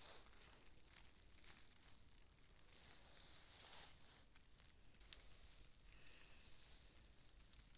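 Near silence with faint, soft crunching of footsteps in snow, irregular and uneven, and one small sharp click about five seconds in.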